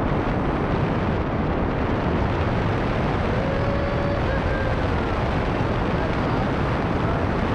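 Steady wind rushing over the camera's microphone during a descent under a parachute canopy. About three seconds in comes a faint, drawn-out vocal call.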